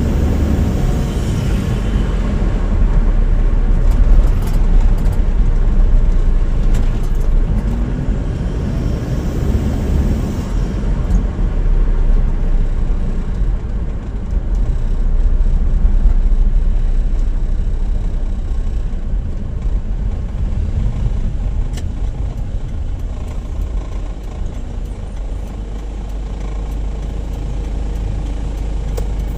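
A vehicle being driven on a road test, with steady engine and road rumble heard from inside the cabin. It eases off slightly near the end.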